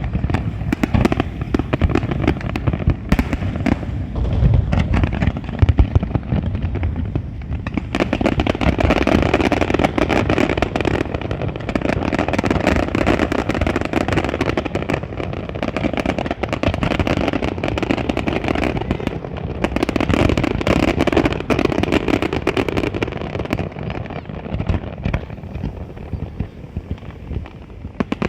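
A large fireworks display going off without pause: a dense stream of rapid crackling pops over a rumble of booms. The booms are heavier for the first several seconds, then a thick crackle takes over and thins out toward the end.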